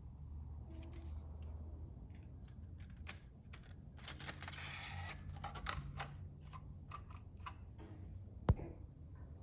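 Packaging being handled and opened while unpacking a head stud kit: rustling, with scattered light clicks and a sharp click near the end.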